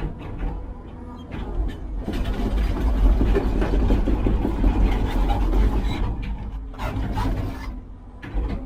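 Engine of a heavy construction machine running, swelling louder for a few seconds in the middle, with scattered knocks and clanks.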